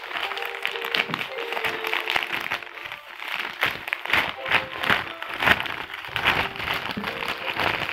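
Plastic courier mailer bag crinkling and rustling as it is pulled open and handled, with a dense run of irregular crackles, over background music with held tones.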